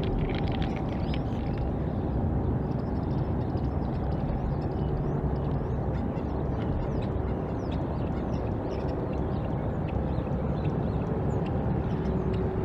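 Outdoor ambience: a steady low rumble with a faint hum, and faint, short, high chirps or clicks scattered through it.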